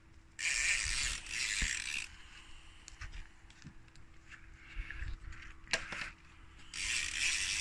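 Fishing reel's ratchet buzzing in two bursts, about half a second in and again near the end, as a hooked catfish is played on a bent rod.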